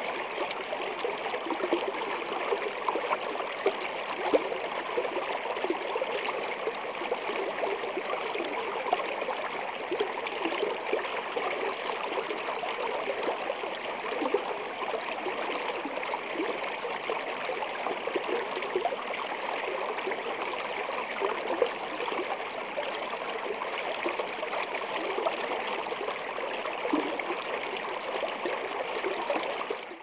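Shallow stream running over stones right at the microphone, a steady rush of water flecked with many tiny splashes.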